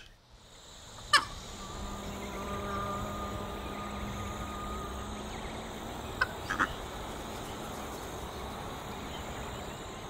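Outdoor nature ambience with animal calls: a steady background fading in over the first two seconds, a long held call in the middle and two short calls about six seconds in. A sharp click about a second in is the loudest sound.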